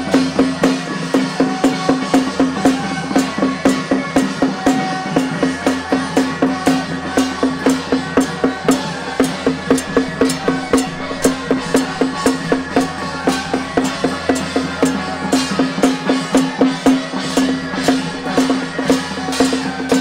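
Drum-led temple-procession percussion music: drums and sharp clacking strokes beating a fast, even rhythm of about three strokes a second over a steady held tone.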